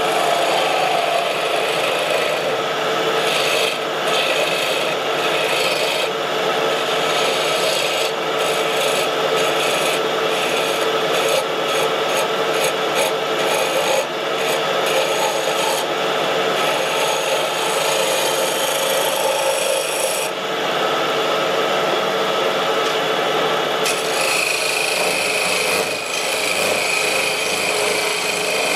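Wood lathe running with a pine blank being turned on it: continuous scraping and rubbing of the tool on the spinning wood over the machine's steady hum. The scraping changes character about two-thirds of the way through.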